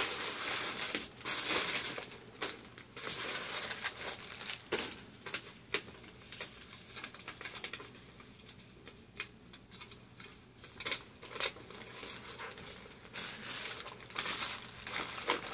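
Plastic mailer bag crinkling and rustling as it is opened and handled, in irregular crackly bursts, quieter in the middle and busier again near the end.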